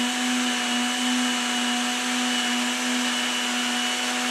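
Countertop blender motor running at a steady high speed, pureeing carrot soup in a glass jar.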